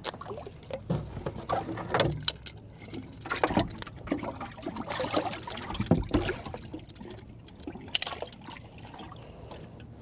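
Water sloshing and splashing in a boat's livewell as hands grab bass out of it, with scattered sharp knocks mixed in; it dies down near the end.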